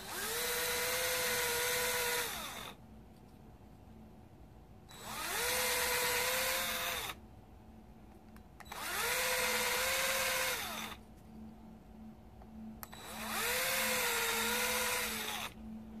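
Cordless drill with a 1/8-inch bit drilling screw holes into 3D-printed plastic parts, in four short runs of about two seconds each. Each run spins up with a rising whine and winds down as the trigger is released.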